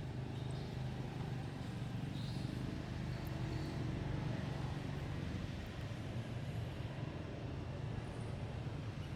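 A steady low mechanical hum, with a few faint short high chirps over it.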